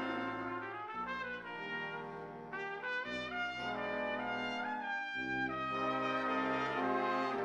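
Jazz big band playing: the brass hold sustained chords that change every second or two, with a trumpet line on top.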